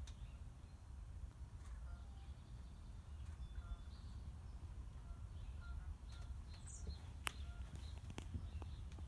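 Quiet background with a steady low rumble and faint, scattered bird chirps, broken by a few sharp clicks, the sharpest about seven seconds in.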